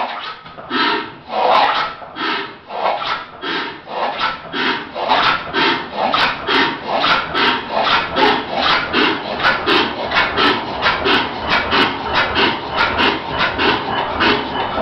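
Early Crossley overhung-crank slide-valve four-stroke engine starting and picking up speed: a regular rasping chuff that quickens from about one and a half beats a second to about two and a half.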